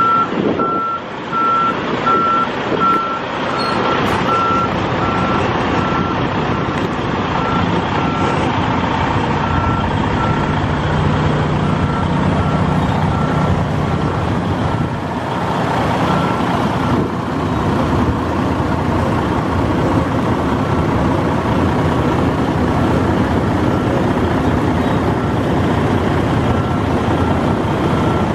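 Semi tractor-trailer reversing slowly, its diesel engine running under a back-up alarm that beeps at one pitch, evenly spaced. The engine is loudest about halfway through, as the tractor passes closest.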